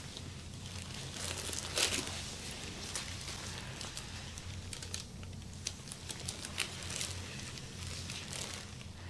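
Hands rubbing and pressing over a patient on a treatment table during a massage: soft, irregular rustling and crinkling strokes over a low steady hum.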